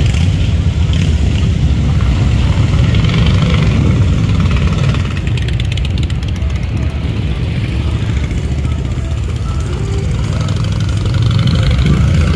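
Several motorcycle engines running in slow street traffic, a steady low engine sound that eases off in the middle and swells again near the end, with music playing in the background.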